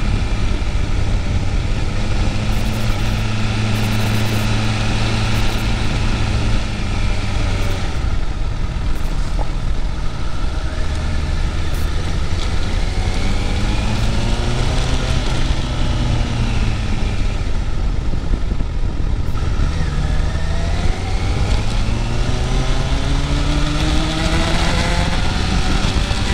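Motorcycle engine running while riding, its pitch steady at first, then dropping and climbing several times as the throttle and gears change, under a constant rush of wind noise.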